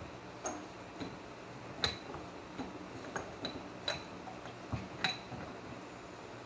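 Metal parts of a mini lathe's tailstock clinking and tapping as it is handled on the lathe bed: about ten light, irregular clinks, each with a short metallic ring.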